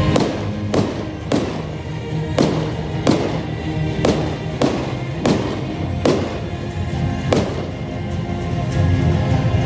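Fireworks bursting in a quick series of about a dozen sharp bangs, roughly one every half second to second, with music playing underneath.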